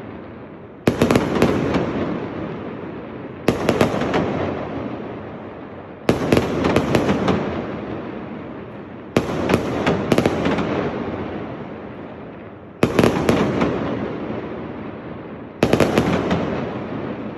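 Aerial firework shells bursting one after another, seven in all and roughly every two to three seconds, with two close together about nine seconds in. Each is a sudden bang with a quick run of crackles that fades away in a long echoing rumble.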